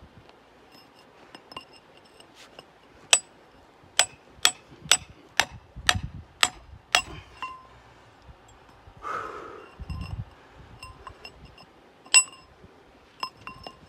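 Hand hammer striking a steel chisel driven into rock. About eight sharp metallic clinks come roughly two a second, each ringing briefly, then after a pause two or three more strikes near the end.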